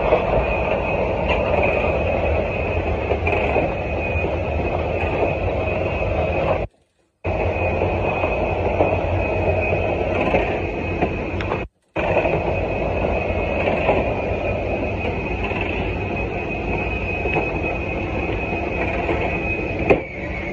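Steady machinery drone with a constant high-pitched whine, from ground and loading equipment heard from inside a Boeing 787-9's lower cargo hold during cargo loading. It cuts out abruptly twice, about seven and twelve seconds in.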